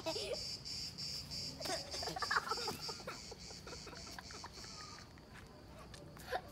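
Children laughing in short bursts over the steady pulsing chirp of an insect, which stops about five seconds in.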